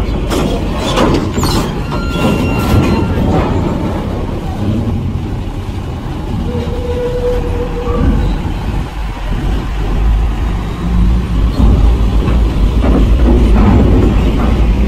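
Diesel engine of a Hino cargo truck running low and steady as the truck rolls slowly past close by, with a few metallic clanks in the first three seconds and a short faint tone about halfway through.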